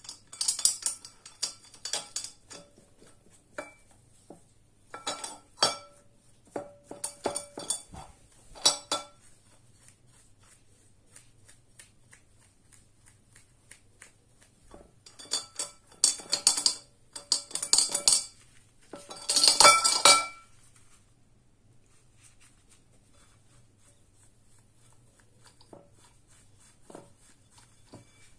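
Brass faucet parts clinking and rattling against a glass bowl while being scrubbed with a brush, in several bursts separated by quiet spells. The loudest burst comes about two-thirds of the way through.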